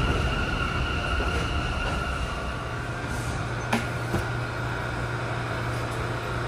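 New York City subway train in a station: a steady high-pitched whine over a rumble fades out about three seconds in, a click sounds, and a steady low hum carries on.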